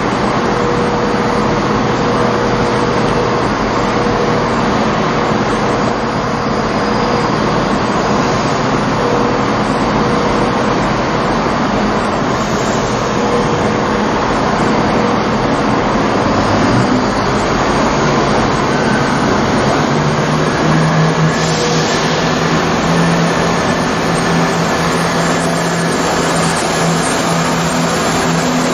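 Diesel engines of Class 43 HST power cars running as the test train rolls slowly through the station, with a steady whine over the train noise. A deeper engine note grows about twenty seconds in as the rear power car draws near.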